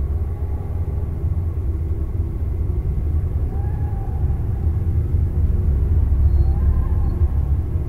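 Deep, steady low rumble that slowly grows louder, with faint wavering tones above it: an ominous film-soundtrack drone.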